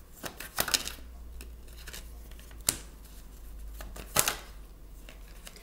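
Tarot cards being handled and laid down on a wooden table, with a few sharp card snaps and slaps: a quick cluster just under a second in, then single ones near 3 s and just past 4 s. A low steady hum runs underneath.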